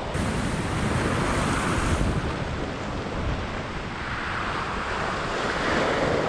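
Ocean swell surging and washing over a rock ledge, swelling louder twice: about a second in and again near the end. Wind buffets the microphone throughout.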